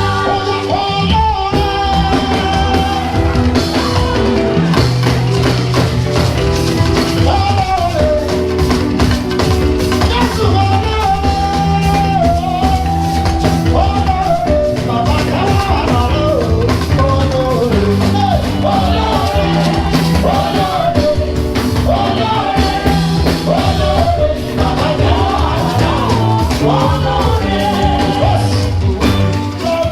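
A male singer performing a live gospel song, his voice gliding and ornamenting over a band with bass guitar and drum kit.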